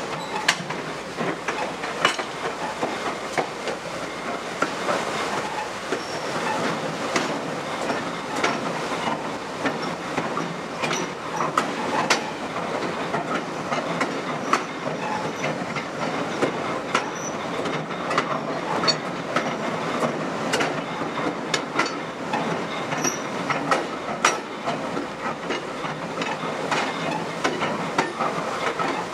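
Passenger train wheels rolling along the rails: a steady rumble broken by frequent, irregular clicks and clacks from the track joints.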